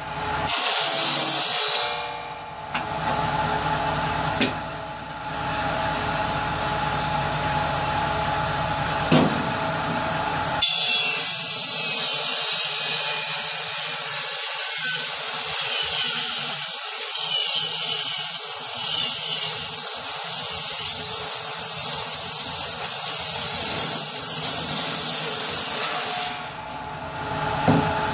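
Power saw running free, then cutting through wood from about ten seconds in. The cut adds a loud hiss that lasts about fifteen seconds, and near the end the saw runs free again.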